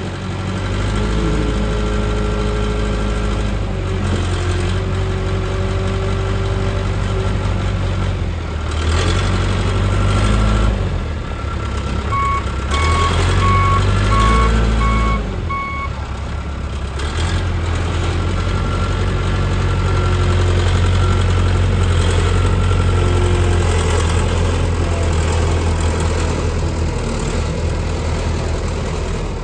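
John Deere 210C backhoe loader's diesel engine running, its speed rising and falling several times as the machine is worked. About midway the reversing alarm beeps about five times.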